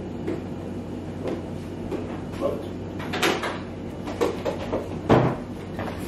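Scattered knocks and handling clatter, with a louder thump about five seconds in.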